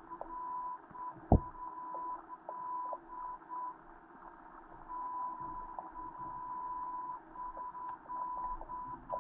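Muffled underwater sound through a GoPro's waterproof housing: a steady high beep-like tone that keeps cutting out and coming back, with scattered faint clicks and one sharp knock about a second in.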